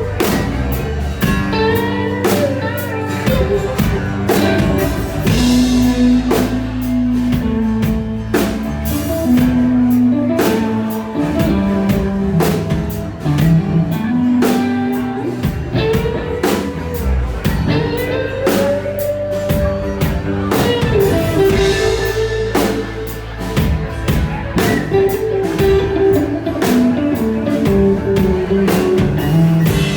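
Blues band playing an instrumental passage without vocals: a guitar lead line with bending, sliding notes over a steady drum kit beat.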